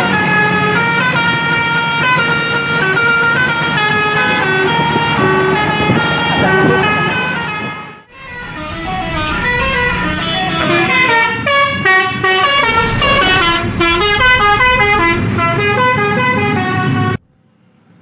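A bus's multi-tone telolet horn plays a quick melody of held notes that step up and down, over engine and road noise. The horn cuts off about eight seconds in. A second run of stepping horn-like notes follows and stops abruptly about a second before the end.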